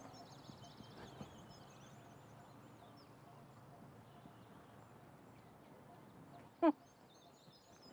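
Quiet outdoor ambience with small birds chirping, high and thin, through the first few seconds. Near the end comes one short, loud, falling voice-like call.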